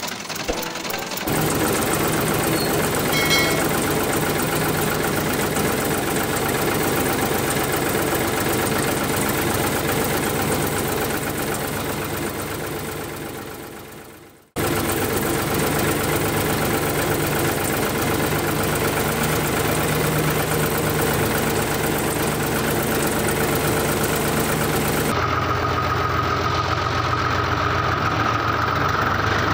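An engine running steadily at idle. It fades out about halfway through, then comes back abruptly. Near the end the sound changes and a steady higher whine comes in.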